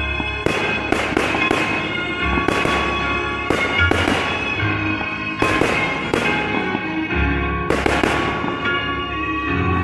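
Aerial firework shells bursting again and again, sharp bangs often coming two or three close together, each with a fading hiss, over classical music.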